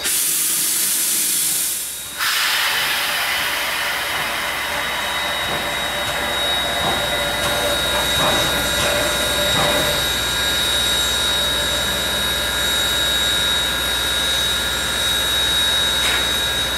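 Southern Railway No. 630, a steam locomotive standing at a platform, hissing steam: a sharp high hiss that cuts off about two seconds in, then a steady fuller hiss with a thin high whine over it.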